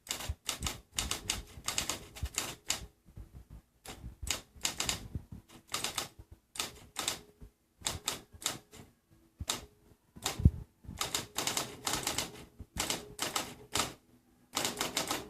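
Typewriter keys being struck in quick runs of clicks with short pauses between them, and one heavier thud about ten seconds in.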